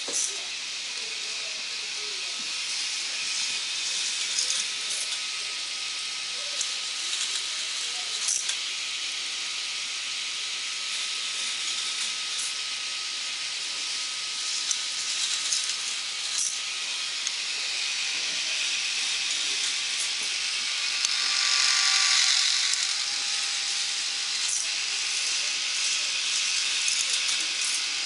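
Small electric motors of K'Nex ride models whirring over a steady hiss, with scattered light plastic clicks from the moving parts; the whir swells for a couple of seconds about twenty seconds in.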